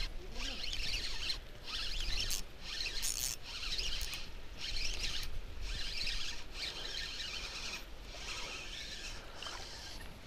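Ryobi Ultra Power 800 spinning reel being cranked to bring in a hooked fish: a dry, zipper-like whirring of the rotor and gears that comes in stretches with short breaks between turns.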